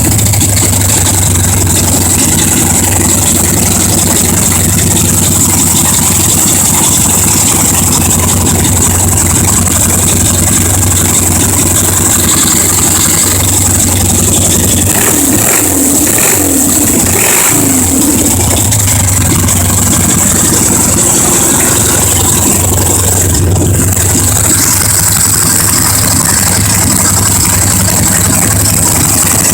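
Freshly rebuilt Harley-Davidson Ironhead 1000cc V-twin running steadily on its first start after the rebuild, blipped up in revs a few times about halfway through.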